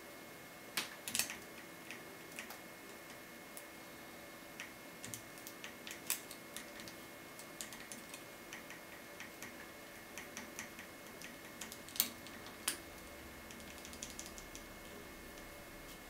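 Irregular small metallic clicks and ticks of a lock pick raking and lifting the pins inside a Thirard Surveyor five-pin tumbler euro cylinder, with a few sharper clicks about a second in, around six seconds, and twice near twelve seconds.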